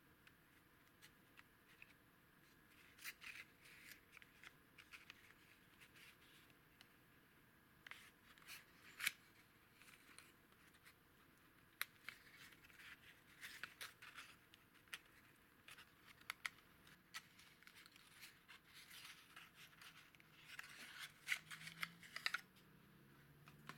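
Faint rustling, scraping and scattered clicks of a small cardboard valve box being handled and opened, busiest near the end as the glass EL85 vacuum tube is slid out of it.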